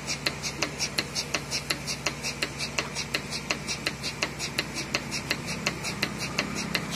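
Portable milking machine running: a steady low hum from the vacuum pump under rapid, even clicking of the pulsator at about four a second as the teat cups milk the cow.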